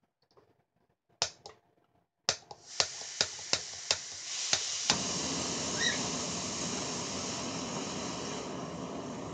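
Backpacking butane-propane canister stove being lit: gas hisses from the opened valve while the piezo igniter clicks repeatedly, about three times a second. The burner catches about five seconds in and then burns with a steady rushing sound.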